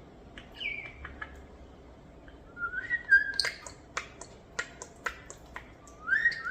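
European starlings whistling and clicking: short whistles that slide in pitch, mostly rising, and a run of sharp clicks about three a second in the middle.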